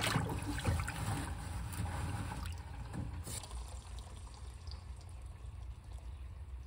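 Rusty electrolysis solution pouring out of a steel motorcycle gas tank into a utility sink and trickling down the drain, busiest for the first few seconds and then tapering off, over a steady low hum.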